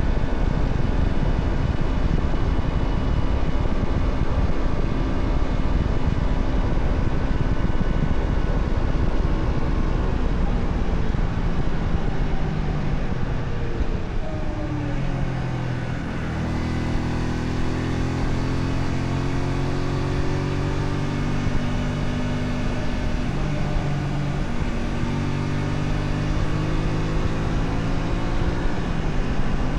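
Honda Shadow 125 V-twin engine and exhaust under way, mixed with wind rush. About halfway through, the engine note falls as the bike slows, then runs on at lower, steady revs with less wind noise.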